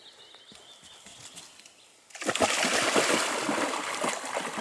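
A black Labrador wading into a pond, its legs splashing through the shallow water. The splashing starts suddenly about two seconds in, loud and then slowly fading. A bird sings faintly before it.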